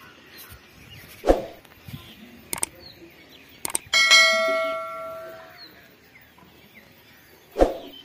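Subscribe-button animation sound effect: clicks, then a notification bell ding about halfway through that rings out for a second or so. Short thumps come about a second in and near the end.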